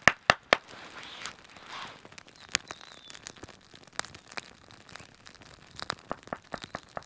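Freshly lit campfire of split dry wood crackling, with a quick run of loud cracks at the start, then scattered sharp pops.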